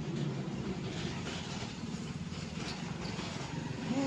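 Low, steady rumble of a vehicle engine running in the background.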